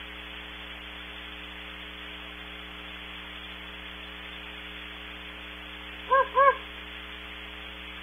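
Two short hoots in quick succession from distant Great Horned Owls about six seconds in, heard through heavily amplified, distorted audio with a steady hiss and electrical hum.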